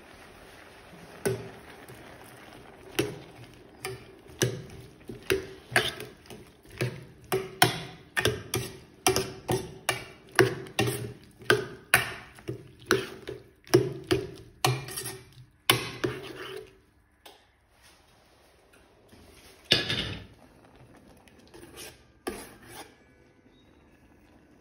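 A metal spoon stirring chopped tomatoes and red onions in a cooking pot, knocking and scraping against the pot about one and a half times a second. The stirring stops about two-thirds of the way through, and a couple of single knocks follow.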